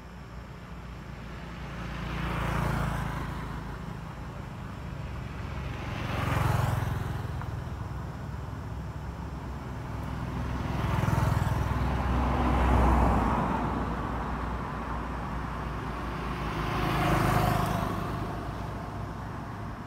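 Road vehicles passing one after another, each swelling up and fading away over a couple of seconds, about five passes in all, over a steady low rumble.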